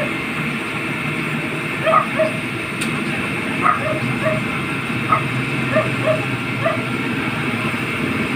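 A dog barking in short single and paired barks every second or so, over the steady hum of fire-truck engines running in the street.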